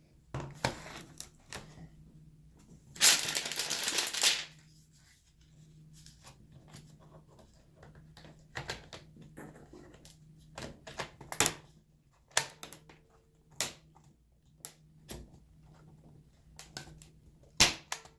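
Handling noise from a laptop while its battery is put back in and it is set up to switch on: scattered clicks and taps, with one loud scraping rustle lasting about a second near the start.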